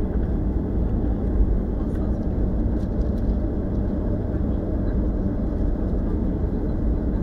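Steady jet engine noise and low rumble of an airliner heard inside the passenger cabin as the plane rolls along the runway.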